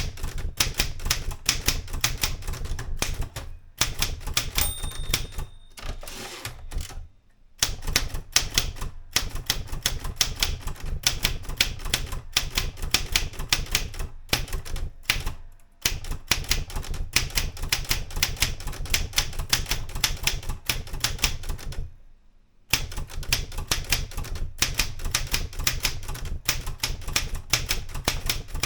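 Erika 105 typewriter being typed on fast, its type bars striking the platen in rapid runs with short pauses between. About five seconds in comes a single short ring of the margin bell.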